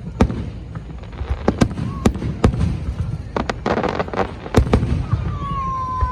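Fireworks display: a rapid, irregular series of sharp bangs from bursting shells, with a burst of crackling around the middle. Near the end, a whistling firework sounds one long whistle that slides slightly down in pitch.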